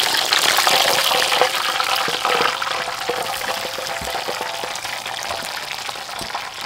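Hot oil sizzling and crackling around a whole chicken deep-frying in a wok, loudest for the first couple of seconds and then settling lower, with a few light knocks.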